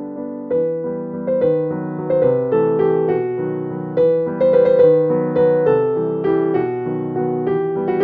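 Background piano music: a steady, gentle melody of struck notes over chords.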